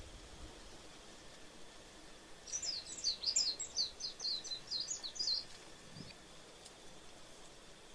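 Warbling white-eye (Japanese white-eye) singing one quick twittering phrase of about fifteen high, down-slurred notes, lasting about three seconds and starting a couple of seconds in.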